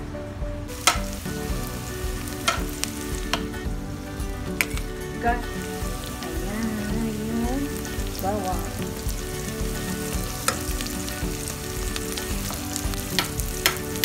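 Chopped onion and garlic sizzling in hot oil in a non-stick pot, starting about a second in. A wooden spatula stirs them and knocks sharply against the pot a few times.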